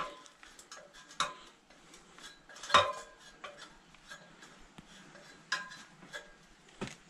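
Aluminium extension ladder knocking and clinking under a person's climbing steps: a few separate sharp metallic knocks as shoes and hands land on the rungs. The loudest comes a little under three seconds in.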